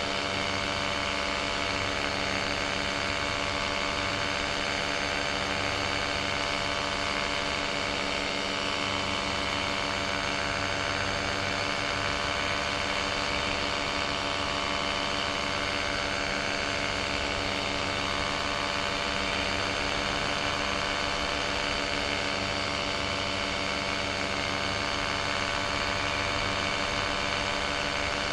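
Paramotor engine and propeller running at a steady throttle in flight, an even drone with a constant hiss over it.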